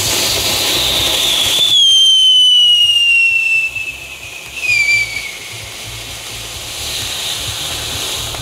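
Penguin-shaped ground fountain, a category F1 youth firework, burning with a loud spraying hiss. About two seconds in a whistle joins it and slides slowly down in pitch for about three seconds, with a brief second whistle near the middle. After that the hiss goes on more quietly.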